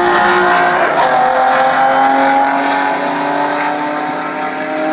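Drag-racing cars at full throttle down the strip, engines loud; the engine note drops about a second in, then climbs steadily.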